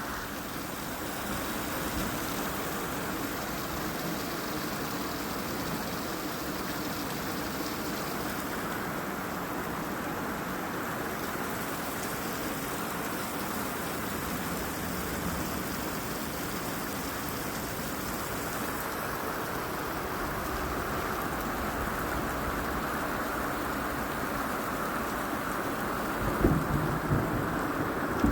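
Heavy rain pouring down steadily, heard from inside an RV.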